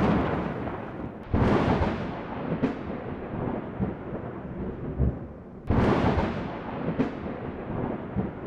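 Thunder during a lightning storm: the rumble of a strike dies away at the start, then sudden cracks come about a second in and again near the six-second mark, each fading into a long rolling rumble.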